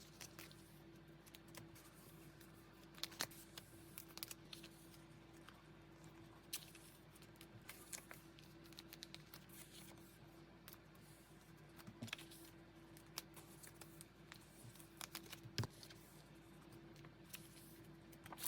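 Faint scattered clicks, taps and light rustles of small merchandise items and packaging being handled and set down while they are sorted, a few sharper taps standing out, over a steady low hum.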